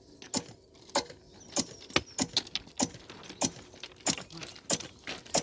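Hammer blows on steel during rail track work: about a dozen sharp metallic clanks at an uneven pace, roughly two to three a second.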